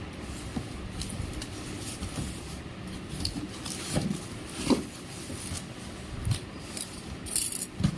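Irregular handling noises: scattered clicks and knocks with some rubbing, and a short rustle near the end. No motor is running.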